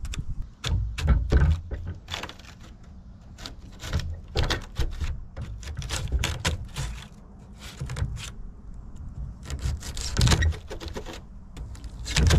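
Irregular clicking and crunching of brittle, corroded copper radiator fins being picked and cut away with a hand tool, in uneven clusters of sharp clicks.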